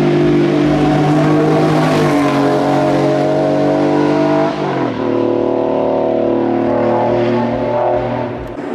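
Porsche 911 race car's flat-six engine at high revs, accelerating hard past and away uphill. The pitch drops sharply at an upshift about halfway through, then climbs again as it pulls away, fading near the end.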